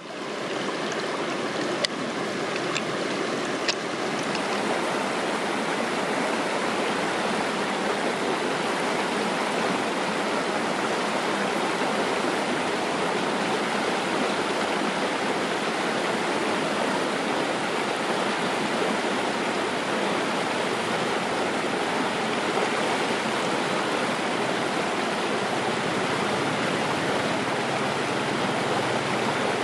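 Shallow stream flowing, a steady rush of water, with a few sharp clicks in the first few seconds.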